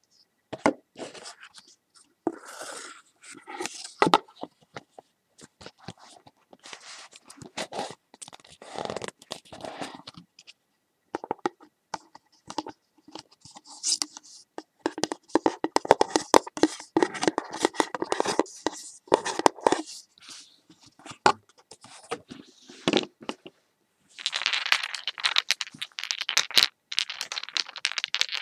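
Irregular crinkling, scraping and crackling handling sounds with many sharp clicks, growing denser and louder near the end.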